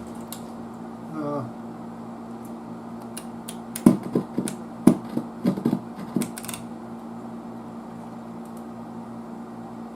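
Vintage tube amplifier humming steadily through its speaker, with a cluster of sharp clicks and pops about four to six seconds in while its inputs are tested. The input under test is not working right.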